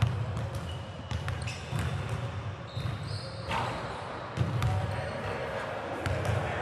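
Basketballs bouncing on a hardwood gym floor, an irregular series of dull thuds, as players shoot around.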